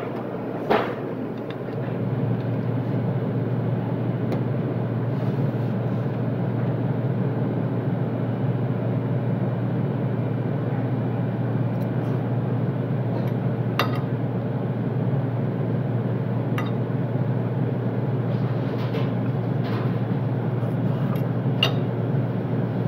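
Steady low mechanical hum of commercial kitchen equipment, stepping up slightly about two seconds in. A few sharp clinks of a metal fork against a plate sound over it.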